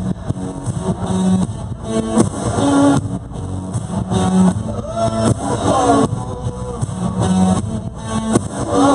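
Music with guitar and a recurring low note.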